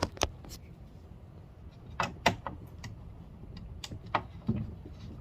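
Hard plastic armrest parts clicking and knocking as they are handled and worked apart after the screws are out: a few separate sharp clicks, two loud ones about two seconds in and more near the end.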